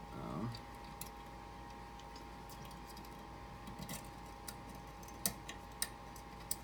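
Lock pick raking a pin-tumbler lock cylinder: light, irregular metallic clicks and ticks, roughly one every second.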